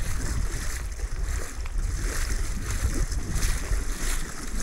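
Wind buffeting the microphone over the lapping and splashing of water around a small boat moving slowly across a lake.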